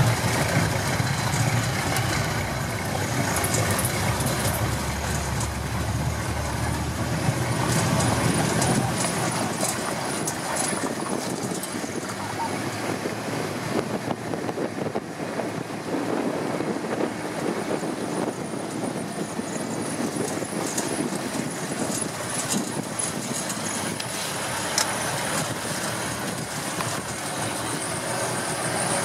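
Open-sided safari vehicle driving on a dirt track: the engine is running under steady wind and road noise, with scattered small knocks and rattles. The low rumble is heavier over the first eight seconds or so.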